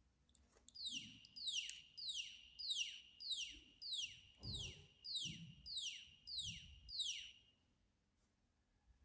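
Alarm buzzer sounding a run of about eleven identical falling electronic chirps, about one and a half a second, then stopping: the gas alarm's warning that gas has been detected. A few soft low knocks sound underneath.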